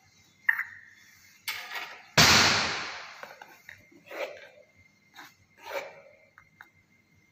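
Handling of a reagent bottle and glass test tube on a lab bench: a click, a rustle, then a loud bump about two seconds in that dies away over a second, followed by a few small clinks and taps.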